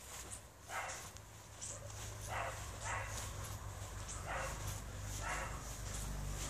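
Stone marten caught in a wire live trap, giving short harsh cries, five in the space of a few seconds.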